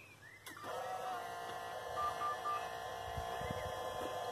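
A Range Rover P38 with its ignition switched on ahead of a cold start: a click, then a steady electrical whine with a run of three short high beeps from the dashboard warning chime.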